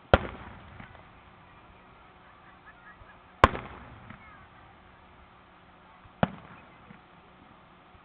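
Aerial firework shells bursting: three sharp bangs about three seconds apart, each trailing off in a short echo, the third one softer.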